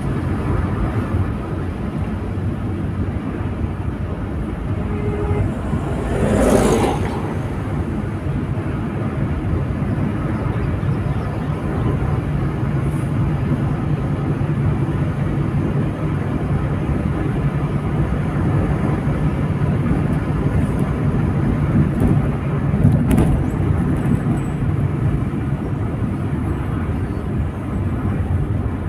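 Steady road and engine noise inside a moving car at highway speed, with a brief whoosh about six seconds in and a fainter one later.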